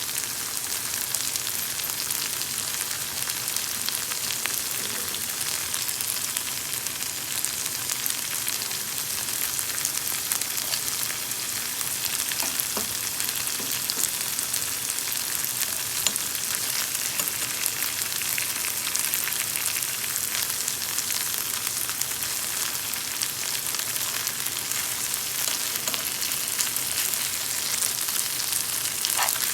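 Mutton and chickpeas sizzling steadily in hot oil as they dry-fry in a pan, with occasional short clicks.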